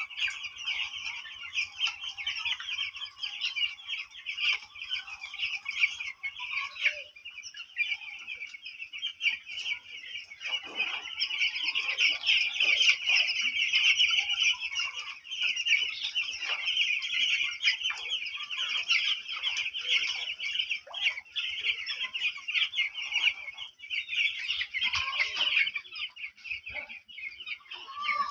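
A large flock of chickens calling at once: a dense, steady chorus of high-pitched cheeping, with lower clucks coming through from about ten seconds in.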